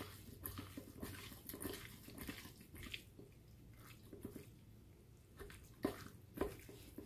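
Faint wet squishing and light contact of hands mixing raw lobster tail pieces with seasoning in a stainless steel bowl, with two slightly louder short sounds near the end.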